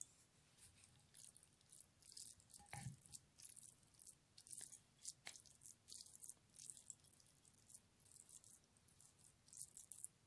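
Near silence, with faint irregular soft scrapes of a plastic spoon pressing cooked grated carrot pulp against the cloth of a plastic strainer.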